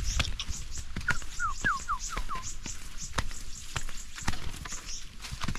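Footsteps and a wooden walking stick knocking irregularly on a forest trail, with leaves and brush rustling. About a second and a half in, a bird gives five quick descending whistles.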